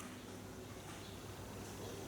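Faint steady background hiss with a low hum: a pause with no birdsong.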